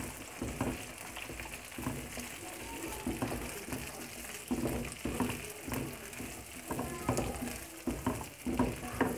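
Onion and green capsicum stir-frying in hot oil in a non-stick pan: a steady sizzle with irregular scrapes and taps of a spatula against the pan.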